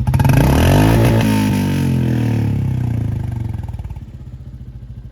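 Royal Enfield Classic 350 Reborn's single-cylinder engine and exhaust running loudly, its pitch sliding and the sound fading steadily over a few seconds as the bike moves off. The fuel tank holds a freshly added fuel system cleaner additive.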